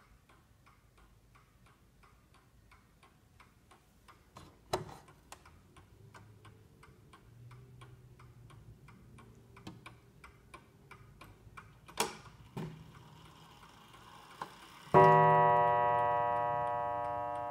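Vintage walnut-cased pendulum mantel clock ticking steadily, with a few sharper clicks as its hands are turned. Near the end the movement strikes once, a single loud ringing note that slowly fades: the half-hour strike.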